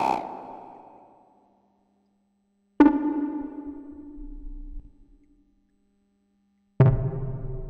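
Moog synthesizers run through a Dave Smith Evolver and Audiomulch, playing sparse electronic hits. A decaying sound dies away in the first second and a half, then after a short silence two sharply struck pitched notes about four seconds apart each ring down over a couple of seconds, over a faint steady hum.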